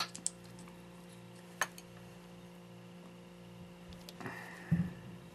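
A few faint clicks and a short rustle as small plastic in-ear headphones are handled, over a steady low hum. The rustle comes about four seconds in.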